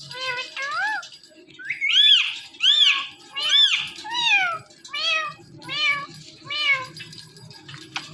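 Indian ringneck parakeet mimicking a cat's meow: a string of about nine high meows in a steady rhythm, each rising and then falling in pitch.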